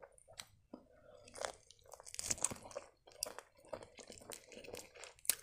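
Close-miked crunching and chewing of the crisp, slightly hard fried crust of a cheburek: a run of small crackles, with a sharp crack near the end.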